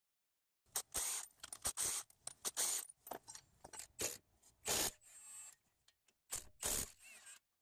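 Milwaukee cordless impact wrench on the strut-to-steering-knuckle bolts, triggered in short irregular bursts mixed with metal scraping and handling noise. It starts a little under a second in.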